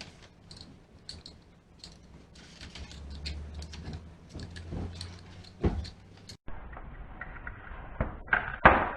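Clicks, knocks and scraping of tools and parts as a palm sander is pried apart, with a louder knock near the end.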